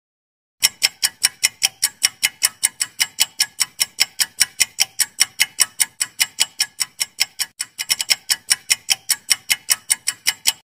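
Ticking sound effect for a quiz countdown timer: rapid, even clock-like ticks, about five a second, starting about half a second in and stopping abruptly near the end.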